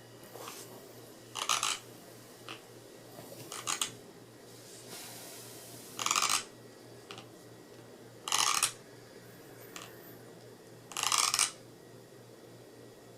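A man grinding his teeth in his sleep (bruxism): five short, gritty rasping bursts about every two to three seconds, with fainter clicks between them.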